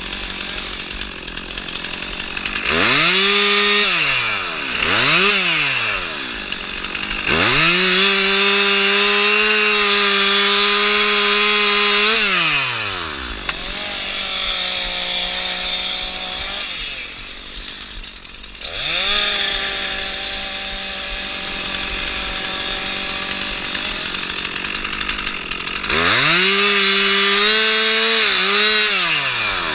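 Two-stroke chainsaw engine revved in two quick blips, then held at high revs for about five seconds, dropping back to idle, and opened up to high revs again near the end.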